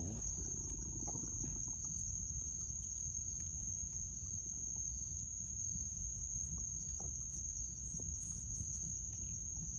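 Insects trilling in one continuous, steady, high-pitched tone, with a faint low rumble underneath.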